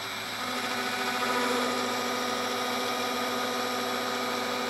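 Metal lathe turning a chrome-plated hydraulic cylinder rod with a cutting insert in the cut: a steady whine made of several tones that grows louder about half a second in and then holds. The hard chrome plating is dulling the cheap insert.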